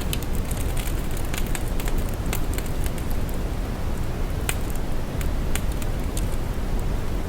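Brown noise: a steady, deep, bass-heavy hiss with crackles and pops scattered irregularly over it, most of them in the first few seconds.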